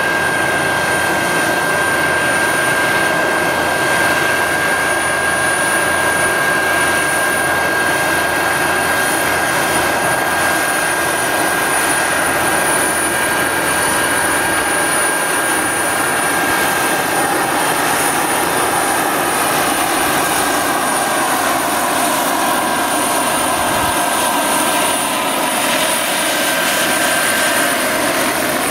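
Large radio-controlled scale Kamov Ka-32 helicopter flying, its coaxial contra-rotating rotors and drive giving a steady, even rotor noise with a thin high whine over it.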